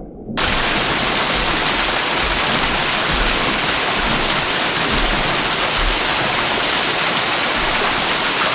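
Dense rushing water, a steady full hiss of heavy rain or a gushing torrent used as a flood sound effect. It is muffled for a split second at the start, then opens up suddenly to full brightness.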